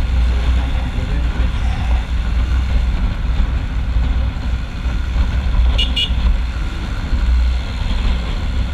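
Wind rushing over the microphone over the running engine of a Hozaka 150 GNX single-cylinder motorcycle cruising along a road. About six seconds in, two short, high beeps sound in quick succession.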